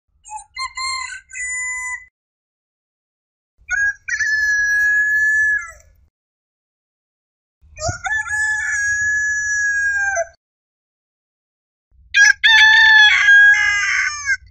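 Roosters crowing: four cock-a-doodle-doo crows, each about two seconds long with silence between them, the last the loudest.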